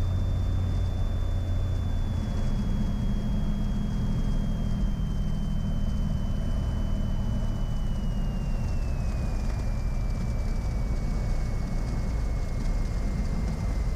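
Cockpit sound of a Cessna 182 Skylane's piston engine and propeller: a steady drone with a thin whine that steps down in pitch as power comes off during the crosswind landing.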